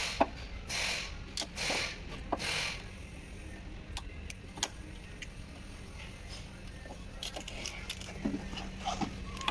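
Four rhythmic scraping strokes, then a few sharp metallic clicks and a cluster of light jingling clicks near the end.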